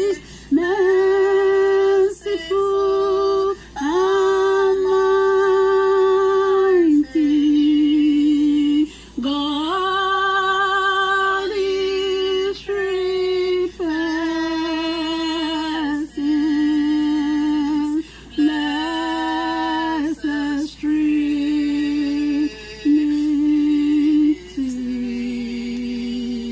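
A woman singing alone without accompaniment: a slow melody of long held notes, phrase after phrase with short breaks for breath. Near the end the line drops lower and softer.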